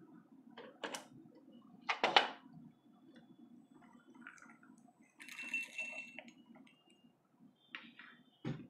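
Plastic hot-air popcorn maker being handled and tilted: a few knocks and clinks, the loudest about two seconds in. Around five seconds in there is a brief rattle of roasted peanuts shifting inside the chamber, and a thud near the end.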